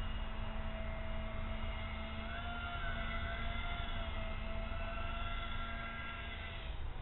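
Twin electric motors of a Hydrofoam RC flying boat whining steadily, the pitch bending twice as the throttle moves, then cutting off shortly before the end. Wind rumbles on the microphone.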